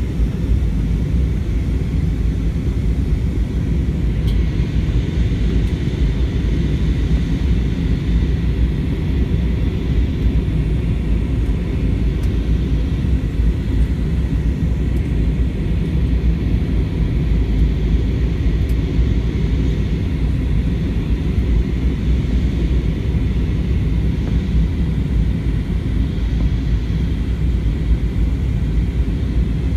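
Steady cabin noise inside an Airbus A320-200 airliner descending on approach: an even, deep rumble of engines and airflow with a fainter hiss above it.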